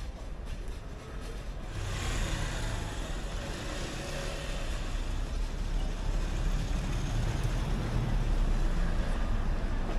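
A motor vehicle running close by in the street, its engine rumble and road noise coming in about two seconds in and slowly getting louder.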